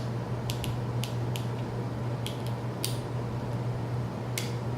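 Light, sharp clicks and ticks, about eight scattered through the few seconds, from small steel parts of a Ruger 10/22 trigger group being pushed and handled as a pin is pushed out.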